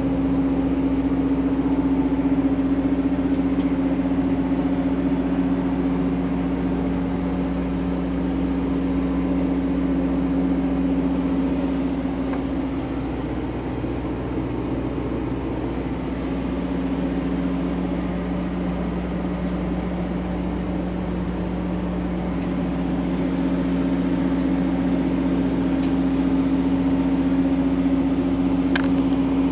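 Steady mechanical hum of a vehicle's running machinery heard inside the command truck's body: a low drone with a constant pitched whine over it, easing a little in the middle.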